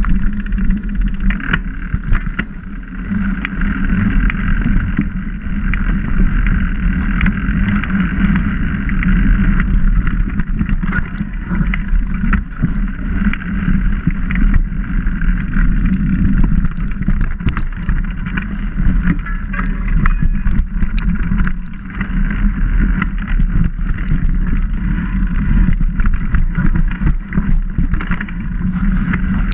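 A bike rolling fast over a dirt forest trail: a steady rumble of tyre and wind noise on the camera, broken by frequent short rattles and knocks as it goes over bumps and roots.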